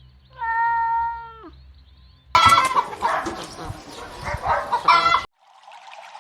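A cat gives one drawn-out meow lasting about a second, holding its pitch and dropping at the end. Then chickens cluck and squawk over each other for about three seconds, stopping abruptly.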